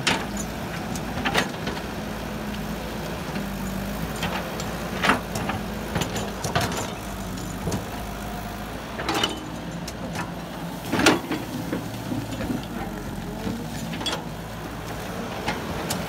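Caterpillar tracked excavator's diesel engine running steadily under working load, with irregular knocks and clanks as the bucket and boom dig into brush and soil. The loudest knock comes about eleven seconds in.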